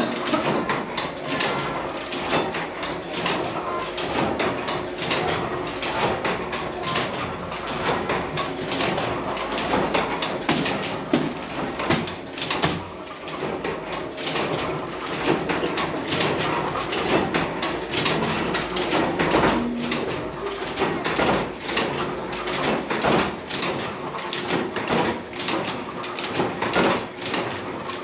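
Automatic carry bag printing machine running: a steady motor hum under a continuous run of sharp mechanical clacks from its moving printing mechanism.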